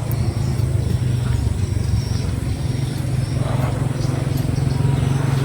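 An engine running steadily with a constant low hum that holds one pitch.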